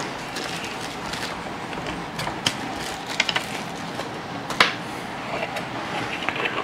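A few scattered, irregular clicks of a hand ratchet and small metal bolts being handled as Torx Plus bolts are taken out of a grille bracket, over a steady low hiss.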